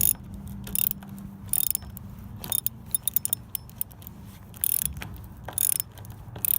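Ratcheting multi-tool clicking in short runs, about one a second, as it is swung back and forth to turn an eye bolt in once it is too tight to screw by hand.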